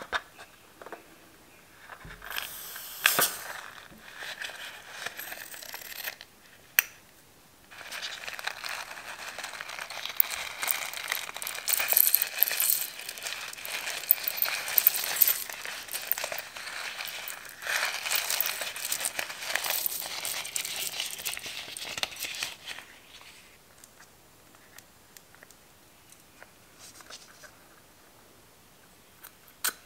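Rubber balloon being squeezed and cut open with scissors over a glass bowl of foam beads and glitter: crinkling and crackling. The sound comes in a few short bursts at first, then runs thick through the long middle stretch, and is faint and scattered near the end.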